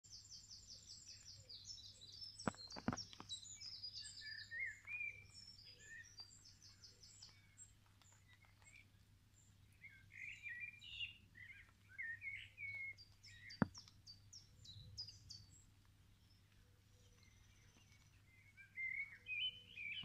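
Several songbirds singing, with fast high trills of repeated notes and lower warbling phrases that come and go. Three sharp clicks, two a few seconds in and one about two-thirds through, over a faint steady low hum.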